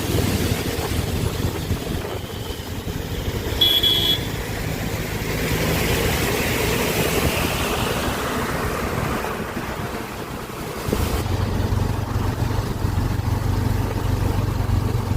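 Road vehicles running on a road, with a steady engine hum that grows stronger after about eleven seconds. A short, high-pitched beep, like a vehicle horn, sounds about four seconds in.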